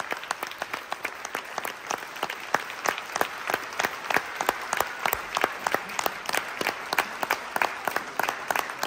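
Audience applauding in a hall, with sharp, loud claps from a person close to the microphone standing out over the crowd's clapping.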